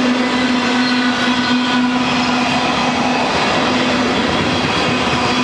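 Freight train tank cars rolling past on the rails: a steady, even rumble with a strong low hum and several fainter higher tones held throughout.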